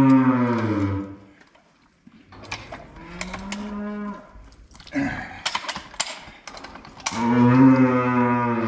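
A cow bellows during a hard assisted calving as the calf is pulled from her with calving chains. A long moo ends about a second in, a shorter, lower call comes around three seconds, a few sharp knocks follow, and another long moo starts near the end.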